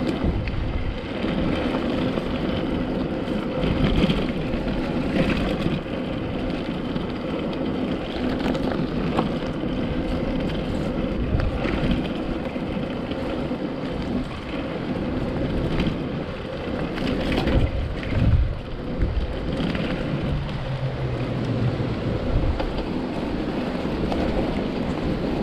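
Mountain bike riding fast over a rough, potholed dirt track: a steady rumble of the tyres on the ground, with scattered knocks and rattles from the bike as it hits bumps and potholes.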